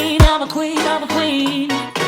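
Background music: a melody with a wavering, vibrato-like line over a beat, with a deep drum kick just after the start.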